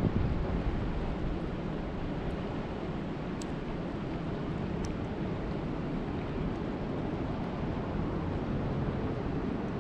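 Steady rain falling, a continuous even hiss weighted toward the low end, with a couple of faint high ticks.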